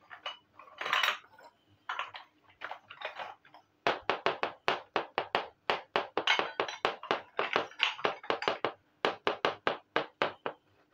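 Miniature toy pot being handled on a table: irregular rubs and knocks at first, then a quick, even run of sharp clicks or taps, about four a second, from about four seconds in until shortly before the end.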